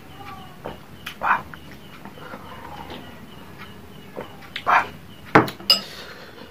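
A ceramic bowl and metal spoon clinking as the bowl is lowered and set down on a table. The loudest sharp knock comes about five seconds in, followed by a short ringing clink, with a couple of short breathy sounds from the eater before it.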